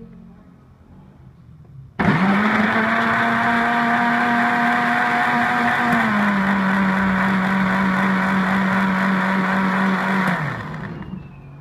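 Electric blender motor switched on about two seconds in, running steadily as it blends milk, banana, biscuits and sugar into a milkshake. Its pitch steps down slightly about halfway, and near the end it is switched off and winds down with a falling whine.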